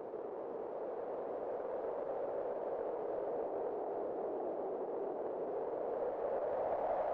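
Wind howling: a hollow, whistling band of rushing noise that slowly rises in pitch and grows a little louder.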